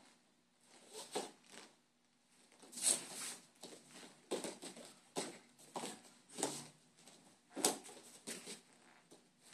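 Taekwondo uniforms swishing and snapping with each punch and kick, and bare feet stepping and landing on foam mats, as two children perform a form: a string of short, irregular swishes and soft thuds.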